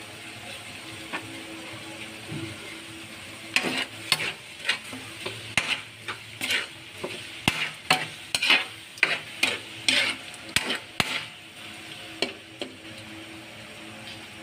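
Chopped meat sizzling in a nonstick wok, stirred with a spatula. The steady sizzle is joined a few seconds in by a run of quick scraping strokes, about two a second, that stop near the end.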